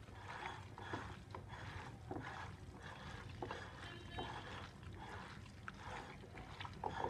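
Hands squishing and kneading raw mutton pieces with sliced onions, spices and oil in a bowl: faint, irregular wet squelches and small clicks.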